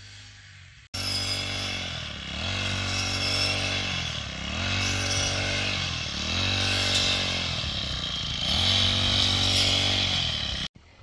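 An engine running steadily, its pitch dipping and coming back up about once a second, six or seven times, with a hiss on top. It cuts in suddenly about a second in and stops abruptly just before the end.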